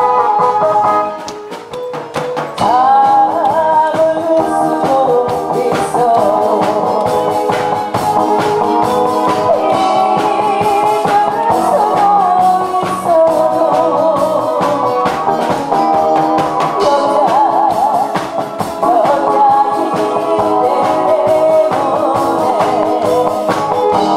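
A woman singing into a microphone over backing music with guitar, her voice wavering with vibrato on held notes. The music dips briefly about a second in.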